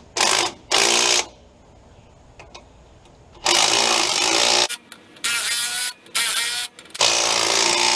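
Impact wrench with a 9/16 socket running in six short bursts, driving in the 3/8-inch bolts that hold the outer hub onto a jeep's front hub. Each burst starts and stops abruptly.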